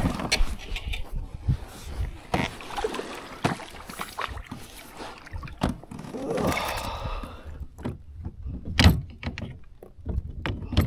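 Scattered knocks and clatter of gear being handled in a kayak, with a louder knock about nine seconds in.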